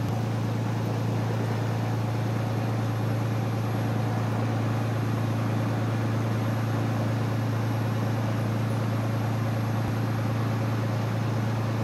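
Cirrus single-engine piston airplane's engine and propeller heard from inside the cockpit, a steady low drone that holds the same pitch and level throughout.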